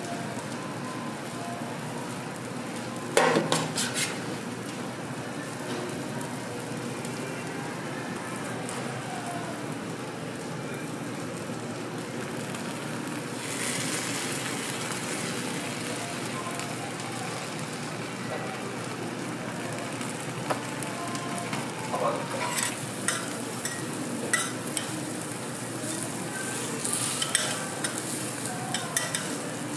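Food sizzling steadily on a steel flat-top griddle. Sharp metal clanks about three seconds in, and metal spatulas scraping and tapping on the griddle surface through the last several seconds.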